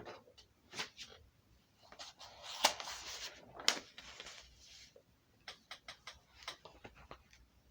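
Small clicks and soft rustling handling noises in a quiet small room, with a quick run of light clicks in the last few seconds.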